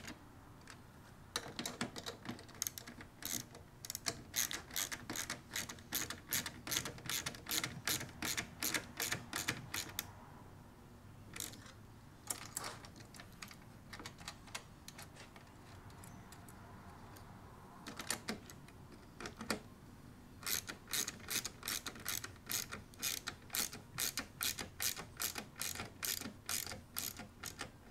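Ratchet handle on a 10 mm socket clicking in quick, even runs while it tightens bolts into a plastic trunk base plate. There are two long runs of clicks with a gap of several sparser clicks in the middle.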